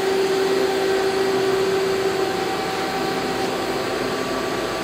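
Steady whirring hum of running machine-shop equipment: an even rush with a steady mid-pitched tone over it that fades a little after a few seconds.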